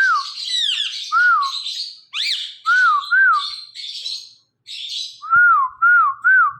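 Ringneck parrot (rose-ringed parakeet) calling: a string of short whistled notes that rise and fall, about two a second, over harsh squawks and chirps, with one quick upward-sweeping call about two seconds in.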